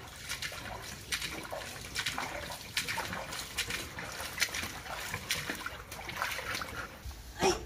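Rubber boots wading through ankle-deep floodwater, a splash and slosh with each uneven step, and a louder splash near the end as a broom is set down in the water.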